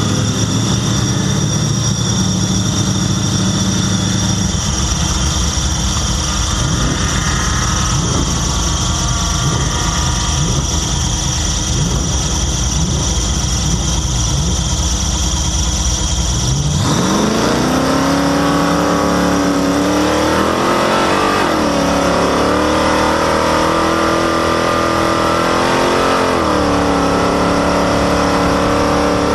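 Vehicle engine running while driving, with a loud squeaky belt whining steadily at a high pitch. About two-thirds of the way through, the engine revs up sharply, then its pitch rises and falls twice with the throttle.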